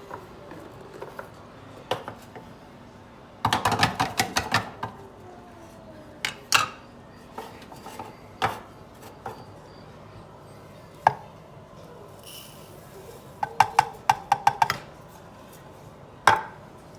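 Kitchen utensils and dishes being handled: two quick runs of sharp clicks and taps, a few seconds in and again near the end, with single knocks in between.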